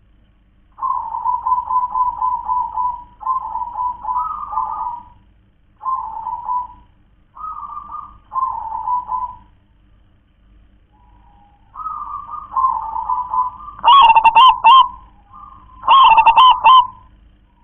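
Zebra dove (perkutut) cooing: phrases of rapid, repeated staccato notes with pauses between them, and two louder, fuller phrases near the end.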